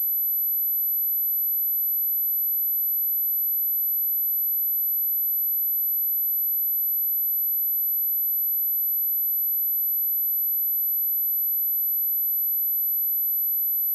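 A single pure sine-wave test tone at 11,962 Hz, very high-pitched and held steady at one constant level. It is a speaker test tone.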